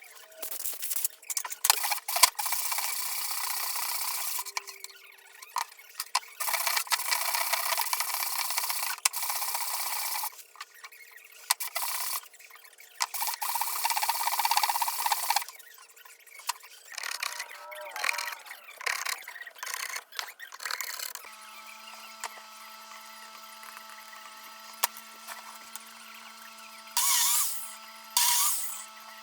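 Power tool working wood in noisy runs of a few seconds with short pauses between them. In the last third the cutting noise stops, leaving a steady hum of several tones, and it picks up again briefly near the end.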